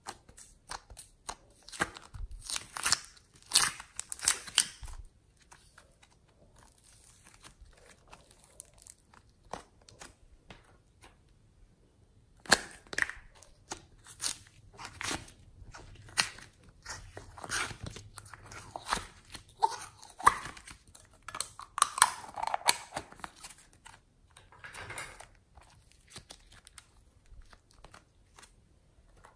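Soft foam clay and its plastic packaging, a flower-shaped palette and a piping bag, crackling and crinkling under the fingers as the clay is pressed and squeezed out. The sound is a run of irregular sharp crackles that come in clusters, with a quieter stretch early on between them.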